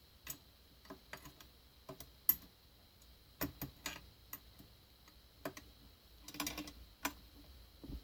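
Scattered light clicks and taps of small metal parts being handled as the grinder's table is set down on razor-blade shims, with a short scraping rustle about two-thirds of the way through.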